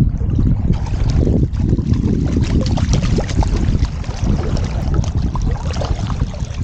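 Steady rush of river water close to the microphone, with many small splashes and a low rumble throughout.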